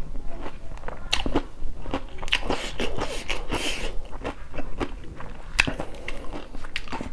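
Close-miked chewing of a crunchy shredded singju salad: irregular crunches and wet mouth clicks, with a few short hissing sounds in the middle.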